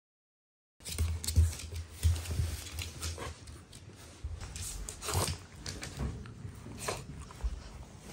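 A Shiba Inu close to the microphone, puffing short snorts through its nose, with low thumps and rustles as it moves about. The sounds begin about a second in.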